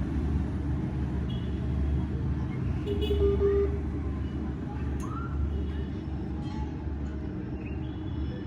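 Steady low background rumble with faint, brief pitched sounds over it.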